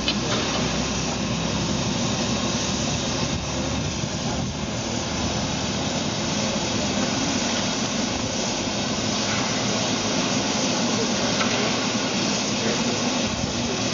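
Steam hissing steadily from around the cylinders at the front of C36-class steam locomotive 3642 as it stands on the turntable.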